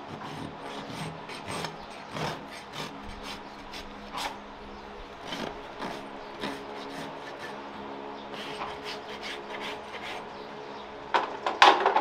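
A farrier's rasp filing a horse's hoof in irregular scraping strokes, with a few louder, harder strokes near the end.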